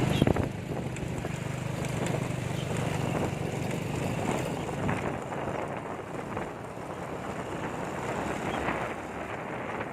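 Wind rushing and buffeting over the microphone of a moving vehicle as it speeds up. A steady engine hum is heard at the start and drops away about half a second in.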